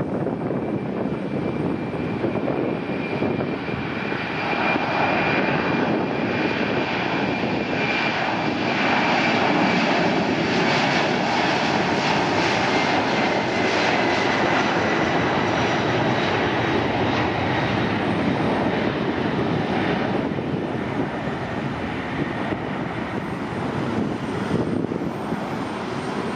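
Boeing 767-300ER freighter's twin jet engines at takeoff thrust during the takeoff roll: a steady loud rush with a thin whine that sinks slightly in pitch as the aircraft passes. The sound is loudest in the middle and eases off a little after about twenty seconds as the aircraft heads away down the runway and lifts off.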